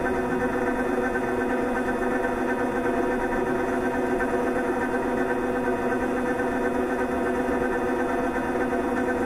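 Motor of an electric shaking (vibration) therapy apparatus running at a constant speed, a steady even hum with no change in pitch.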